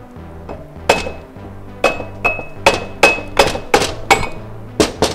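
Dead-blow hammer striking the flywheel of a Kohler Courage engine about ten times in quick succession, several blows leaving a short metallic ring: firm off-centre blows to knock the flywheel loose from its tapered crankshaft.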